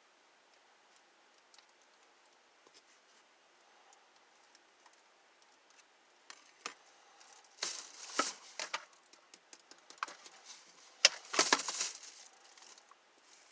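Near quiet for about six seconds, then clicks and two bursts of crinkling, rustling handling noise as the plastic pool hose is moved and handled during a glue-and-baking-soda crack repair.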